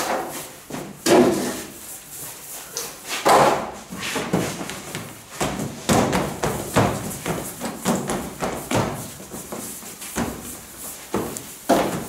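Hands rounding balls of bread dough on a floured stainless-steel worktable: irregular soft thumps and knocks, several a second, with a few louder knocks among them.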